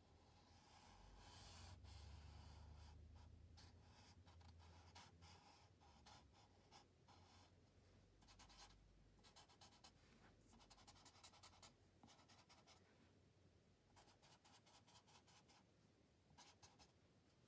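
Sharpie marker drawing on paper: faint, scratchy strokes in quick runs, with brief pauses between them.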